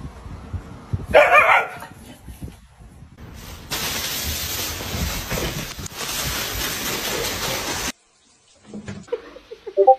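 Shiba inu barks about a second in. Later a steady rushing noise runs for about four seconds and cuts off suddenly.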